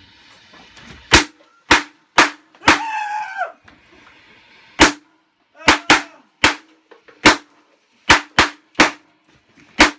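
Firecrackers going off one after another: about a dozen sharp, loud bangs at irregular gaps, some close together. A voice cries out briefly about three seconds in.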